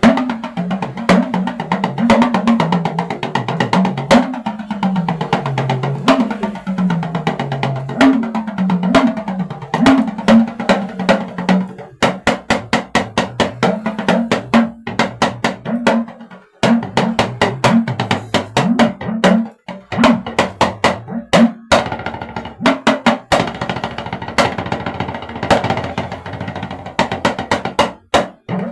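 Talking drum played in a fast run of strokes, its pitch bending up and down from beat to beat, with quicker, steadier strokes in the second half. It is a sound check: playing through the drum's notes to check its pitch and resonance.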